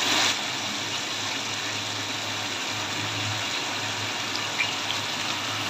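Mutton curry with whole spices cooking in an uncovered steel pot on a gas stove, a steady hiss of simmering and sizzling as the liquid cooks off toward the oil-separating stage, with a low hum underneath.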